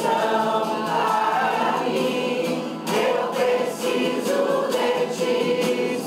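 A group of people singing a song together in unison, led by a man strumming an acoustic guitar.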